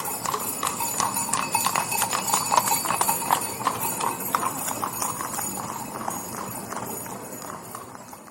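Horse hooves clip-clopping in a rapid, continuous run, growing louder over the first few seconds and then slowly fading away, as a horse passes by.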